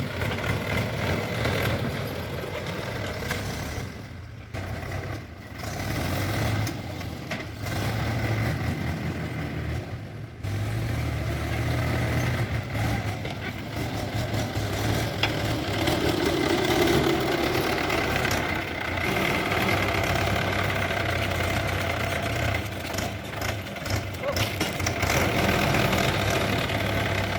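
Diesel engine of heavy machinery running with a steady low rumble, dipping briefly a few times in the first ten seconds or so.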